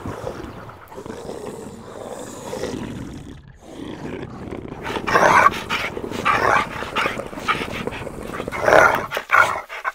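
Black Labrador crashing through dense brush, then barking and growling in a run of loud calls from about five seconds in.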